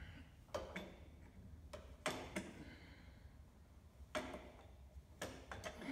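Scattered metal clicks and knocks from hand work on a Bridgeport milling machine head, mostly in pairs a fraction of a second apart, over a low steady hum.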